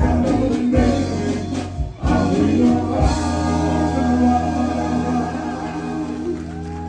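Music with singing, a choir-like vocal over a steady bass, with a change in the music about two seconds in.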